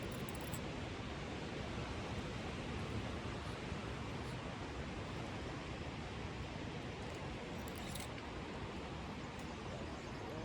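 Steady, even rushing noise with no distinct events; a couple of faint clicks about eight seconds in.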